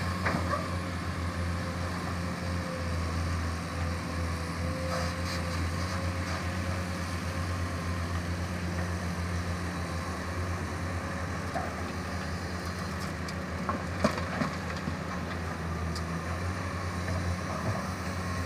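Diesel engine of a Komatsu PC200 hydraulic excavator running steadily while it digs and loads dirt. A few sharp knocks come about fourteen seconds in.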